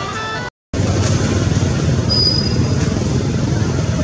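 Steady outdoor background noise with a dense low rumble, after a brief dropout to silence; about two seconds in, a single short high-pitched note.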